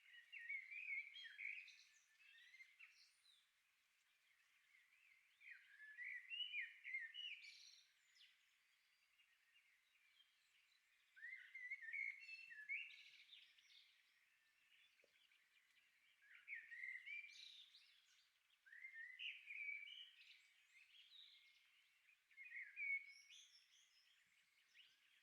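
Songbirds singing faintly in short chirping phrases of quick rising and falling notes, a burst every few seconds with short pauses between.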